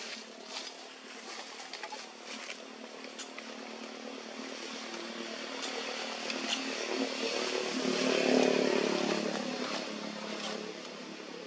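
A small petrol engine running, swelling gradually to its loudest about eight seconds in and then fading away. A few sharp clicks come in the first few seconds.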